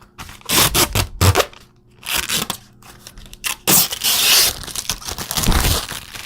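Protective plastic film being peeled off the 3D printer's panels in several separate pulls, each a short tearing rasp.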